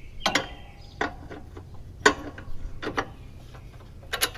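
Sharp metallic clicks and clinks, about six spread over a few seconds, from metal tools and mower-deck parts being handled while a belt is fitted.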